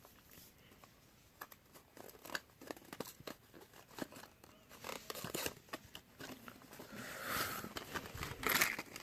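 Wrapping paper being torn and crumpled as a gift is unwrapped: scattered short rips at first, growing into denser, louder crinkling and tearing near the end.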